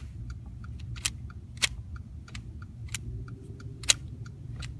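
Plastic toy parts being handled: sharp clicks and snaps, the loudest about four seconds in, over a light run of small ticks. This is the breakaway crash piece of a toy train set, made to burst open.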